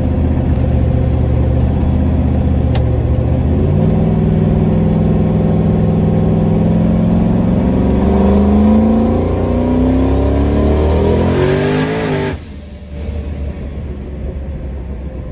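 Turbocharged LS V8 in a Fox-body Mustang, heard from inside the cabin. It runs steadily, then pulls harder from about four seconds in with its pitch rising, and a high whistle climbs alongside it near the end. The sound drops off suddenly about twelve seconds in.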